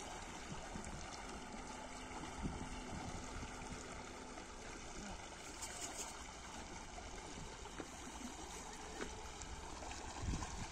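Shallow river water flowing with a faint, steady rushing and rippling.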